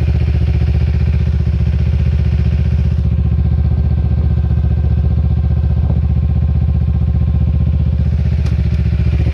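Small petrol engine of a home-built go-kart idling steadily and evenly.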